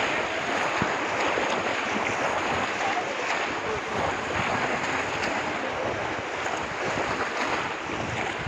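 Steady sloshing and splashing of shallow muddy pond water as several people wade through it and press bamboo cone fish traps into it.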